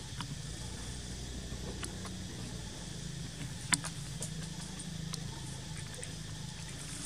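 Dry leaf litter crackling in short, scattered clicks as macaques move and handle things on the forest floor, one sharper crack a little past halfway. A steady low rumble underlies it.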